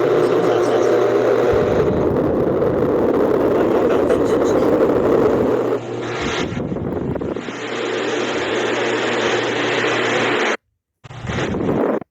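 Electric pedestal fan running, a steady rush of moving air with motor hum; the sound drops in level about six seconds in and cuts out abruptly near the end.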